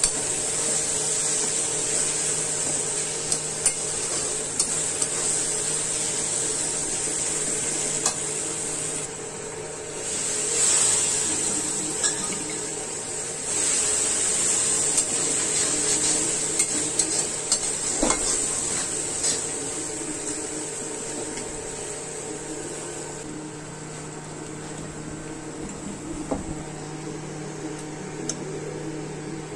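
Prawn masala sizzling in oil in a metal kadai while a slotted metal turner stirs and scrapes through it, with scattered clinks of the turner on the pan. The sizzle eases off about two-thirds of the way through, and a faint steady hum lies underneath.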